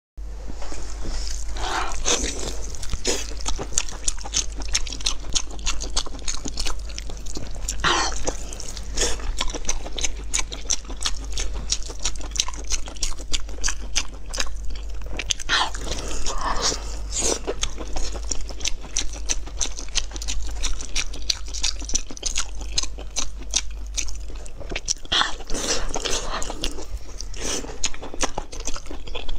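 Close-up eating sounds: wet, irregular chewing, biting and tearing of sticky braised meat and tendon pulled from the bone by hand, with a few louder slurping or sucking moments. A steady low hum runs underneath.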